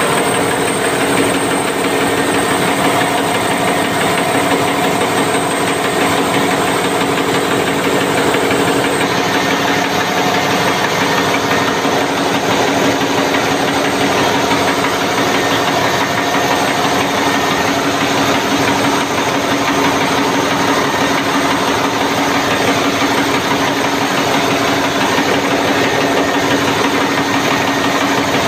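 Large marine diesel engine running loudly and steadily: a dense, even clatter with a constant hum and no change in speed.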